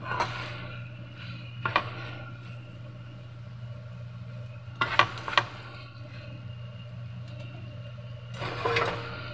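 Beef and onions cooking in a nonstick frying pan over a steady low hum, with a few sharp clicks and knocks. Two sharp clicks come close together about five seconds in, and a short scraping rustle comes near the end.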